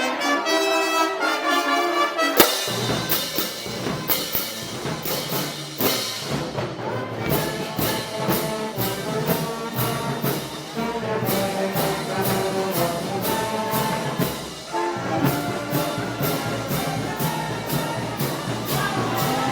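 Brass band playing Moros y Cristianos festival music: trumpets and trombones carry a held melody. About two and a half seconds in a loud crash sets off a steady percussion beat and bass line.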